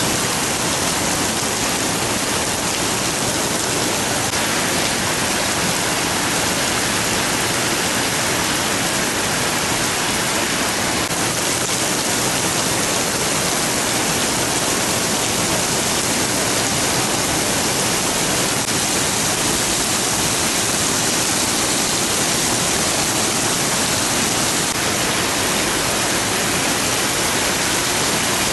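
Heavy downpour: a dense, steady hiss of rain pouring onto a flooded street, with rainwater running over the pavement.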